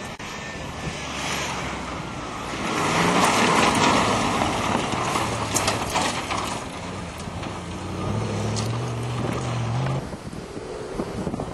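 Off-road competition 4x4 engine working hard, with scattered rattles and clanks; it is loudest about three to five seconds in. The engine pitch climbs near the end, then the sound changes abruptly.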